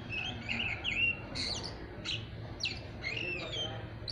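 Oriental magpie-robin (kacer) singing a quick, unbroken run of chirps, short whistles and rising and falling slurred notes. This is the rambling 'ngeriwik' song of a young bird not yet in full, finished song.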